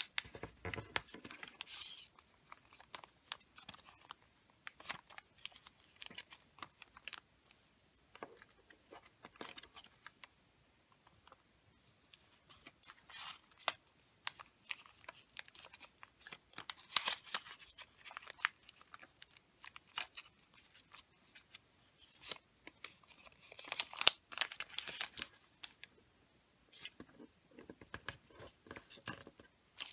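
Wrapping paper being folded and creased by hand: scattered crisp rustles, scrapes and light clicks of paper, with louder clusters a little past halfway and again about four-fifths through.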